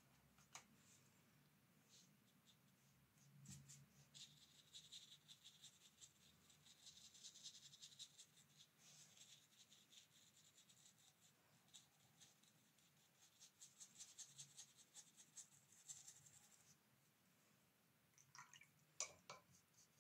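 Faint scratching of a fine watercolour brush stroking across paper, a long run of short, quick strokes. A few soft knocks near the end.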